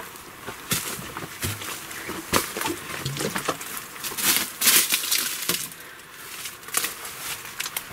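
Footsteps crunching and scraping on dry leaf litter and rock, an irregular series of crunches, loudest about four to five seconds in.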